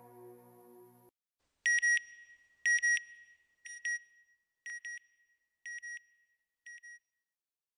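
The last held chord of the background music fades and stops about a second in; then six pairs of short, high electronic beeps, one pair a second, each pair quieter than the last. This is the beeping sound effect of the closing logo animation.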